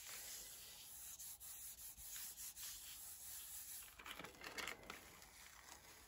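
Faint rubbing and rustling of paper being handled and peeled off a gel printing plate. A denser patch of crackly rustling comes about four seconds in.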